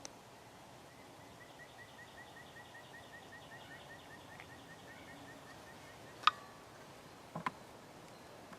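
Quiet woodland with a faint, rapid series of short high chirps, about three or four a second, from a bird or insect for the first half. About six seconds in comes a sharp click, then two smaller clicks close together about a second later.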